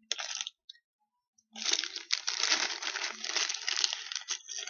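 Plastic snack pouch crinkling and rustling as it is handled: a brief rustle, a pause of about a second, then continuous crinkling.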